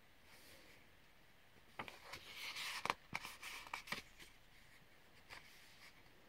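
Faint handling of a paper colouring book: a soft rustle with several light clicks and taps between about two and four seconds in.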